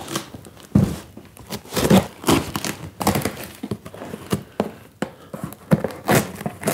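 A cardboard box being handled and torn open by hand: packing tape ripping and cardboard flaps crackling, with several sharp knocks as the box is moved and set down.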